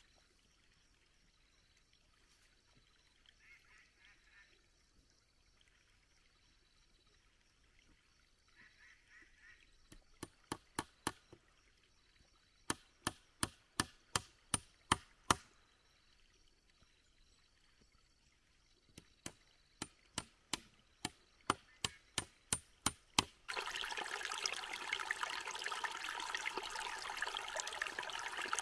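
Quick runs of sharp wooden knocks, about four a second, as a bamboo pole frame is hammered together with a wooden stick, in three bursts with pauses between. Near the end a small rocky stream trickles and splashes, louder than the knocks.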